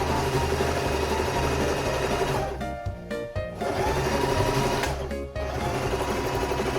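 Electric sewing machine running fast as it stitches a repair in torn trousers, stopping for about a second partway through and again briefly near the end, over background music.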